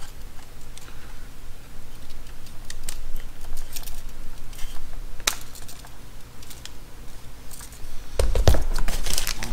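Scattered small clicks and taps of a camera body and small plastic parts being handled, as the rubber eyecup is fitted to the viewfinder. There is one sharp click about halfway. A louder burst of clicks, rustling and low thuds comes near the end.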